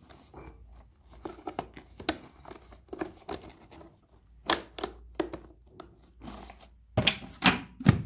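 Plastic clicks, knocks and crinkling as a dust bag is fitted into the bag compartment of a Bosch Ergomax vacuum cleaner, with a few louder snaps near the end.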